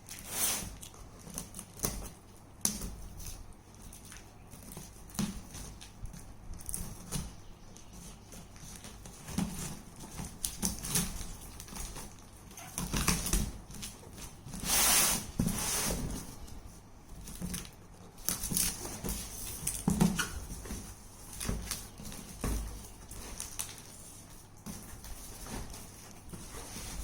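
Packaging being handled during an unboxing: irregular rustles and crinkles with scattered knocks and clicks, a louder spell of rustling a little past the middle.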